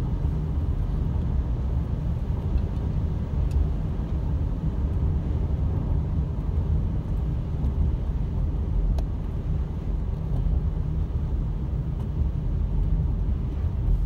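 Steady low rumble of a car driving on a wet road, heard from inside the cabin: engine and tyre noise at a constant cruising pace.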